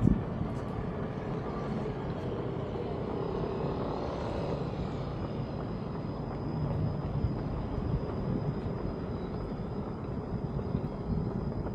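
Steady rumble of distant city traffic, with a thin, steady high tone coming in about three seconds in and a brief thump right at the start.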